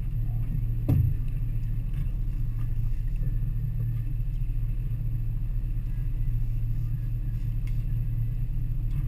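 Twin Suzuki outboard motors running steadily at low speed, a constant low hum, with a single thump about a second in.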